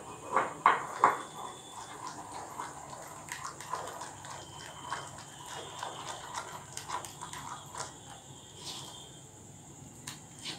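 Besan (gram-flour) batter being mixed in a plastic bowl: wet squishing and small clicks of a spoon against the bowl, with a few louder knocks in the first second.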